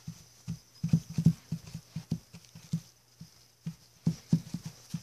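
A toy horse galloped by hand across a shaggy rug, its hooves making irregular soft thuds, several a second in bunches, like clip-clopping hoofbeats.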